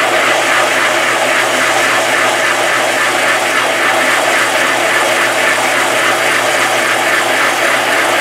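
Horizontal disc sander running with a piece of Brazilian rosewood veneer held against its abrasive disc: a steady, loud sanding hiss over the motor's low hum.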